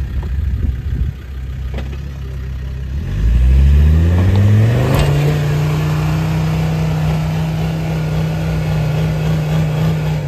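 Land Rover Discovery TD5's five-cylinder turbodiesel engine pulling the truck up a muddy, snowy slope: low revs at first, then revving up over a couple of seconds about three seconds in and held at steady high revs until it cuts off at the end.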